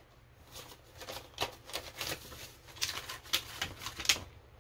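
Paper banknotes rustling as they are pulled from a cash-sorting tray and handled: a string of short, irregular crisp crackles.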